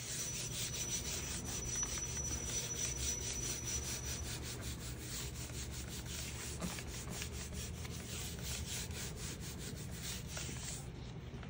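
A palm rubbing a sheet of paper laid over a gel printing plate, in quick back-and-forth strokes at a few a second, burnishing the paper so it lifts the paint off the plate as a print. The strokes stop shortly before the end.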